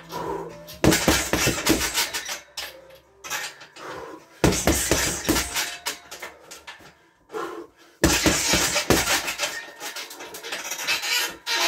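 Gloved punches striking a 100-pound heavy bag in repeated bursts of several blows, with a quieter lull a little past the middle. The bag's metal hanger rattles along with the hits.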